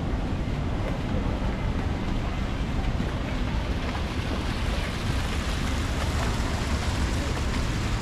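Wind buffeting the microphone: a steady, rumbling rush of noise.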